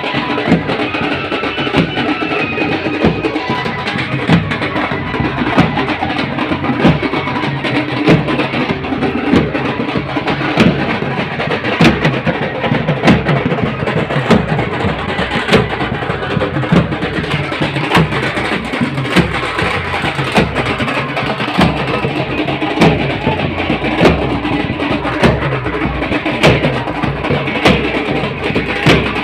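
Gondi tribal wedding dance music: drums beating a steady, driving rhythm under a plucked string melody.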